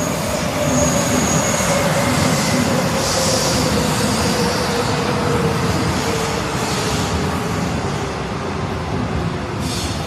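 Metro train pulling into a station, its running noise loud and its motor whine falling slowly in pitch as it slows. A brief high squeal about a second in.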